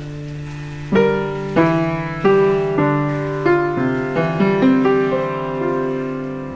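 Gentle background piano music: a held chord, then from about a second in a slow melody of single struck notes that ring and fade, over a faint rain-like hiss.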